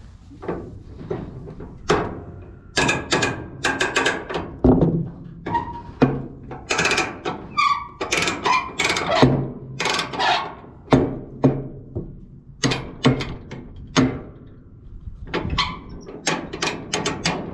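Metal tie-down chains and chain binders clanking and rattling as they are unhooked and dropped, a run of sharp clanks with short metallic ringing.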